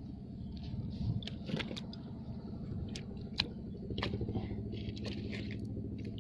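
A small engine running steadily at a low, even hum, with scattered sharp clicks and taps over it.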